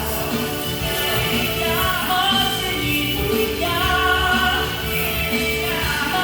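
Background music: a song with a sung melody over a steady instrumental accompaniment.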